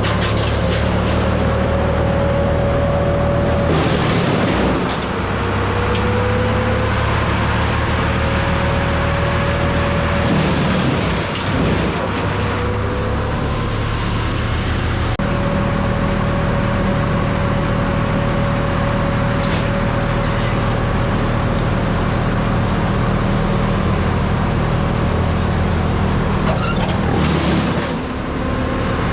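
An engine running steadily at a constant speed, with a thin whine riding over it. The sound changes abruptly a few times.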